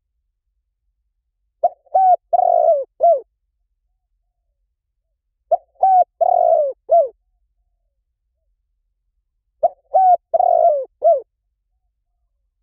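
Spotted dove cooing: three phrases about four seconds apart. Each is a quick coo-coo, a longer rolling coo and a short final coo.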